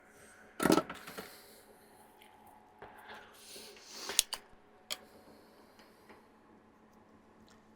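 Small handling noises on a workbench: a few sharp clicks and taps, the loudest about a second in, with rustling between them, as small components and tools are moved about.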